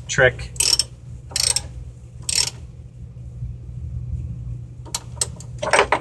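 Ratchet handle on a water heater element wrench clicking in short runs, about a second apart, as the screw-in heating element is worked tight, over a steady low hum.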